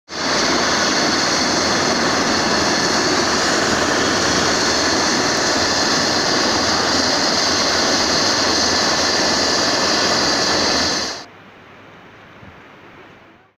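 Helicopter running on the ground, its turbine and turning rotor making a loud, steady noise with a high whine. About eleven seconds in it cuts off abruptly to a much quieter steady background.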